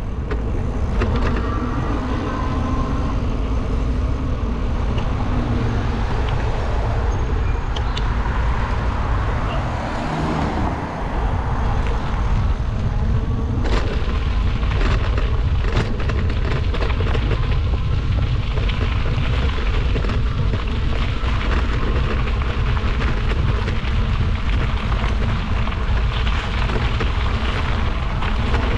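Steady rumble of wind buffeting the microphone of a camera riding along on an e-bike over a dirt trail, with scattered knocks and rattles from the bumpy ground from about halfway on.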